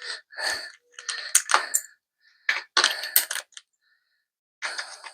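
Small metal parts clicking and rattling in irregular bursts, as screwdriver bits are handled and swapped to replace the wrong bit.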